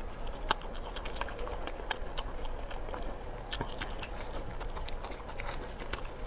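A person chewing and biting into soft, wet perilla-leaf kimchi wrapped around rice: wet mouth smacks and clicks, the two sharpest about half a second and two seconds in.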